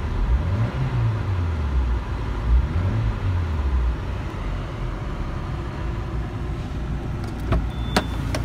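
Citroen Xsara Picasso's 1.8-litre 16-valve four-cylinder petrol engine (EW7J4) running, heard from inside the cabin: two brief revs that rise and fall back in the first few seconds, then a steady idle. A couple of sharp clicks near the end.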